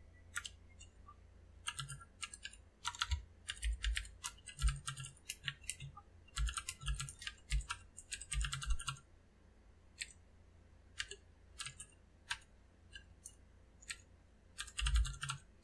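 Typing on a computer keyboard. Quick runs of key clicks come in the first half, then scattered single keystrokes, then another short quick run near the end.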